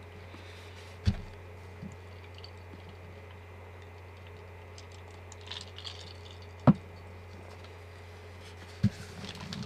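Quiet eating and drinking at a table: a man sips water from a glass, with a few short knocks of things put down on the tabletop, the sharpest about two-thirds of the way through, over a steady low hum.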